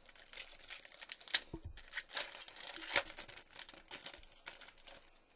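A trading-card pack wrapper being crinkled and torn open by hand: a busy run of crackling and ripping that stops a little before the end.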